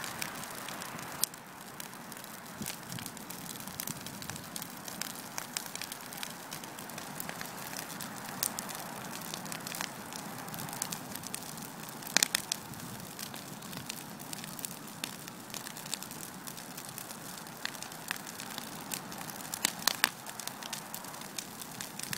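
A pile of dry brush and branches burning: a steady crackle with sharp pops, the loudest snaps about halfway through and again near the end.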